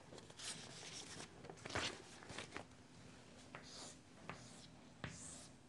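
Chalk writing on a chalkboard: faint, short scratchy strokes and taps as a number and the line of a triangle are drawn.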